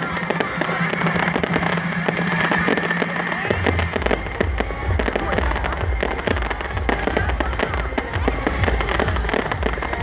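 Loud festival din: dense, continuous crackling over amplified music. A deep pulsing bass beat comes in about three and a half seconds in.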